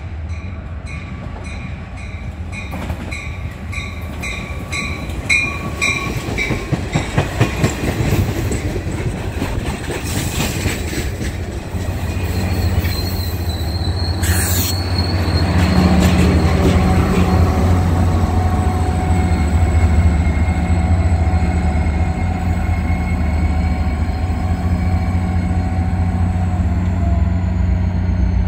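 Caltrain commuter train arriving at a station. A bell rings rhythmically for the first several seconds, then the wheels clatter as the bilevel cars roll past close by, with a brief hiss about midway. After that the EMD F40PH-2 diesel locomotive's steady low drone grows and holds as the train comes to a stand.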